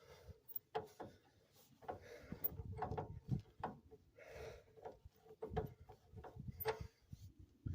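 Irregular light knocks and metallic clinks of hand tools and parts being handled on a workshop axle job, a few with a short ring, mixed with some scraping and rubbing.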